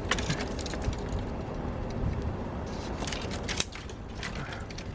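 Small leafy branches crackling and snapping in irregular clicks as they are handled and pushed into a roof frame, over a steady low rumble of wind on the microphone.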